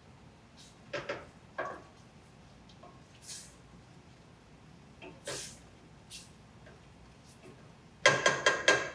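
Cooking utensils knocking and scraping in a pot while the food is stirred, ending in a quick run of about six ringing metallic taps.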